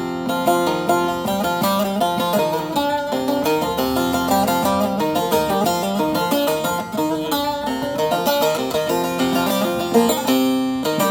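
Solo plucked string instrument playing an improvised opening: quick runs of short notes over a steady ringing drone.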